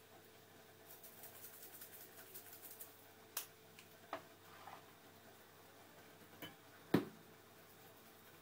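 Quiet kitchen handling noises: a run of light ticks, a few separate clicks, and one sharper knock about seven seconds in, like utensils or cookware being picked up and set down, over a faint steady hum.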